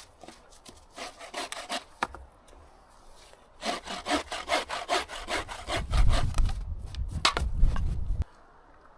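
Hand saw cutting wood in quick back-and-forth strokes, in two bouts with a short pause between. A low rumble runs under the second bout and stops abruptly with it near the end.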